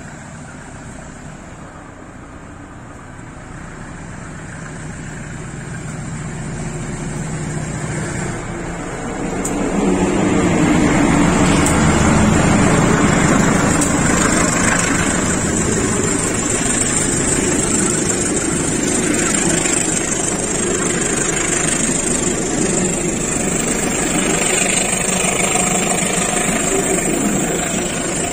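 Indonesian KAI diesel-electric locomotive hauling a passenger train, its engine working hard as it climbs a grade. The sound grows louder as the train approaches and is loudest about ten seconds in as the locomotive passes close by. After that comes the steady sound of the coaches' wheels running over the rails.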